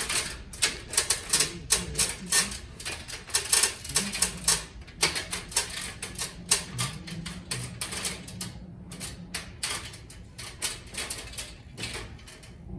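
Rapid, irregular clicking and tapping, several sharp clicks a second, over a faint low hum.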